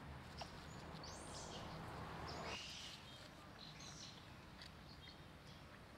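Faint outdoor background noise with a few brief high chirps or squeaks, about a second in, around two and a half seconds in and again about four seconds in, and a scatter of small ticks.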